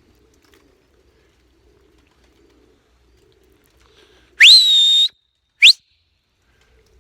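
Two loud, sharp whistles from the pigeon keeper, meant to chase the pigeons off the tree and back into the air. The first sweeps up and holds for about half a second, and the second is a short upward flick a moment later. Faint pigeon cooing comes before them.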